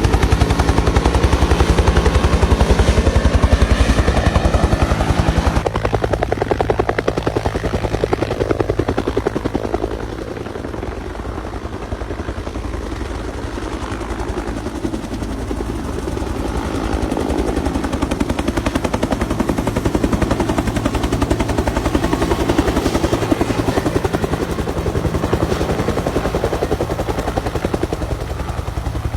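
Firefighting helicopter's rotor chopping, a fast even beat of blade slaps over a steady engine tone. It is loudest in the first few seconds, eases off near the middle and builds again.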